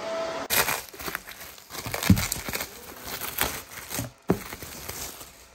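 Paper and plastic packing material rustling and crinkling as it is handled, in irregular bursts.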